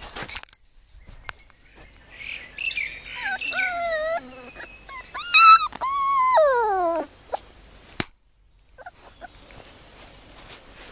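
Puppy whining and whimpering: a run of short whimpers from about two seconds in, a brief high-pitched yelp, then a long whine sliding down in pitch that ends about seven seconds in.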